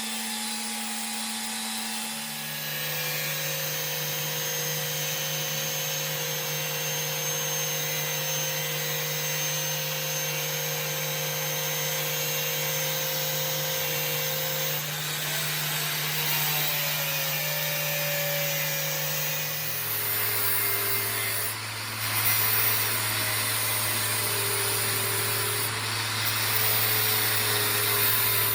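Workshop machine running steadily with a cutting hiss over its motor hum. The hum steps down in pitch twice, about two seconds in and again about twenty seconds in.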